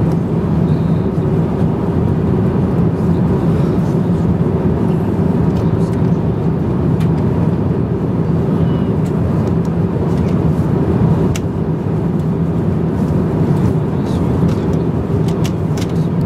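Steady cabin noise of an Airbus A350-900 in flight, heard from inside the economy cabin: a constant low rush of airflow and engines, with a few faint clicks.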